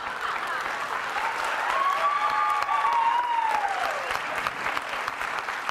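Studio audience applauding, with one long whoop rising and falling over the clapping about a second in.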